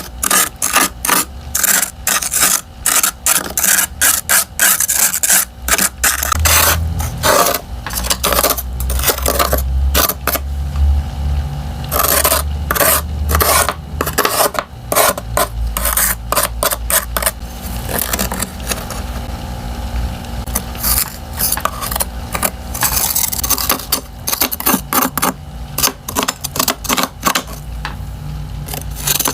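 Freezer frost and ice being scraped in quick repeated strokes, a dry scratchy rasp with short pauses between runs.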